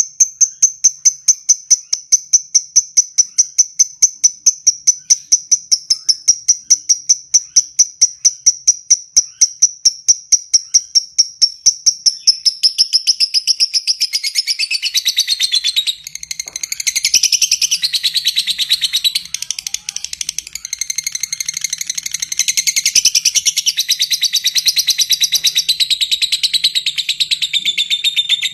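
Lovebird calling: a rapid, even series of sharp, high ticking chirps, several a second (the 'ngetik' or 'typing' call), which about halfway through gives way to a long, dense chattering trill (the 'ngekek').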